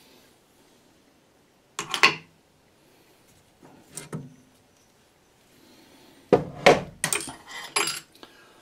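Metal tools being handled on a metal lathe: a few separate clatters and knocks about 2 and 4 seconds in, then a busier run of clanks near the end, as the dial indicator on its stand is lifted away and hands work at the three-jaw chuck.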